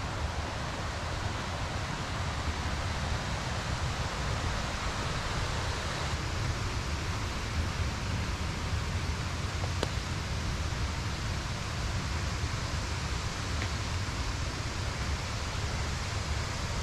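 Steady rushing of a nearby waterfall and river rapids, with a low rumble of wind.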